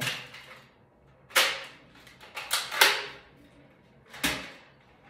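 Toy Nerf blaster being cocked and fired: five sharp plastic snaps, two of them close together near the middle, and the last with a dull thud under it.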